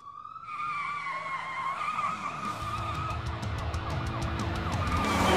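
Cartoon police car sound effects: a steady siren tone, joined about two and a half seconds in by a loud engine rumble and tyre squeals as the car drives in. Backing music with a steady ticking beat runs underneath, and the sound grows louder toward the end.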